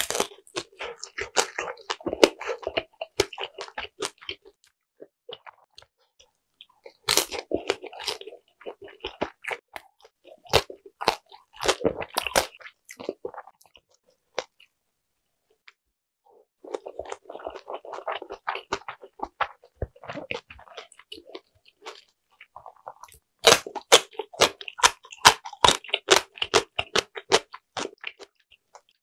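Close-miked chewing and biting of large Korean mandu dumplings, some air-fried with crisp skins: wet, crackly mouthfuls in four bouts of chewing separated by short pauses.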